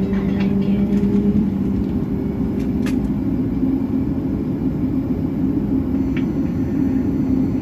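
Steady low rumble and hum inside the cabin of a Boeing 737 MAX 8 as its CFM LEAP-1B engines run at taxi power.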